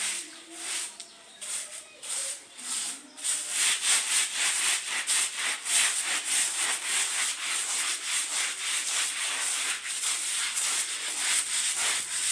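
A stiff brush scrubbing a carpet by hand in rapid back-and-forth strokes. The scrubbing is intermittent at first and turns into a steady, fast scrub about three seconds in.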